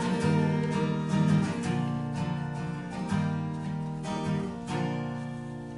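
Acoustic guitar strumming a few last chords that ring out and fade away, ending a song.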